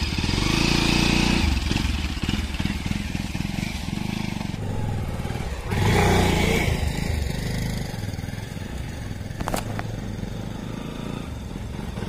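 Motorcycle engine running on a rough track, revving up and growing louder about six seconds in as the bike passes, with one sharp click about nine and a half seconds in.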